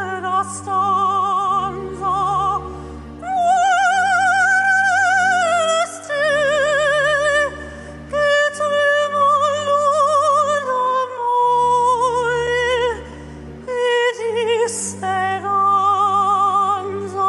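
A male soprano singing opera in a very high, soprano-range voice with wide vibrato, holding long notes over an orchestral backing track.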